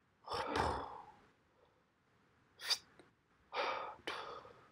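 A man sitting down at a table: soft breathy, rustling movement sounds, with one short sharp click in the middle.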